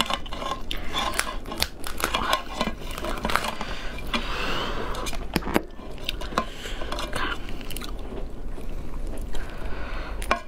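Cooked lobster shell being cracked and pulled apart by hand: a run of sharp snaps and crackles, with shell and meat tearing apart, mixed with some chewing.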